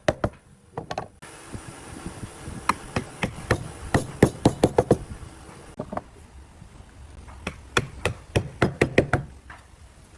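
Hammering on wood: sharp, irregular blows in two quick runs with a short pause between.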